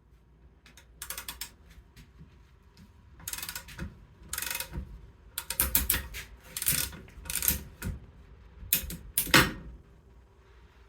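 Hand ratchet wrench clicking in about eight short bursts of rapid strokes, the loudest near the end, as fasteners are worked during water pump removal.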